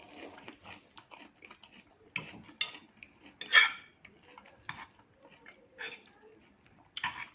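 Eating salad: scattered clinks of cutlery on a plate and crisp crunches of raw vegetables being bitten and chewed, the loudest about halfway through.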